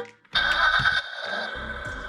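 Electronic tune from the battery-powered sound module in a toy ride-on truck's steering wheel, playing through its small speaker. It starts about a third of a second in, is loudest for the first half-second or so, then carries on more quietly.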